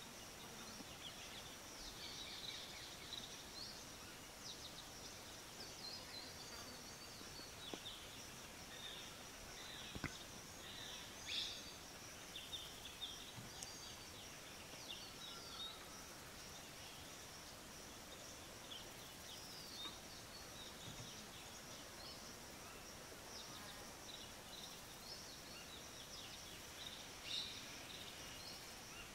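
Faint forest ambience: a steady hiss with scattered high-pitched chirps and short calls of small birds, and a single sharp click about ten seconds in.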